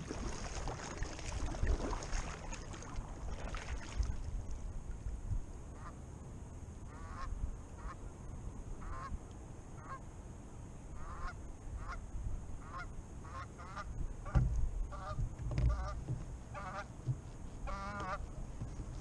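Geese honking, a string of short repeated calls starting about six seconds in, over the splash and swish of kayak paddle strokes in the water.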